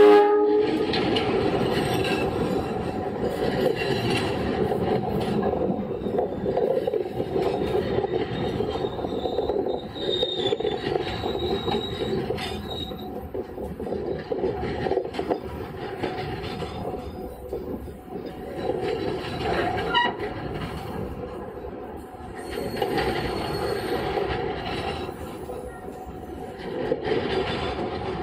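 A passenger train rolling slowly past at very close range: the diesel locomotive's horn cuts off at the very start, then the locomotive and its executive-class carriages keep up a steady rumble and clatter of wheels on rail. Thin, high wheel squeals break in briefly about a third of the way through, and the rumble eases a little in the second half.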